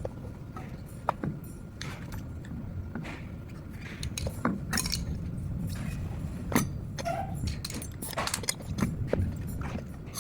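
Irregular clicks and knocks of a tool and tire bead working against the wheel rim as a deflated handcycle tire is pried off the rim.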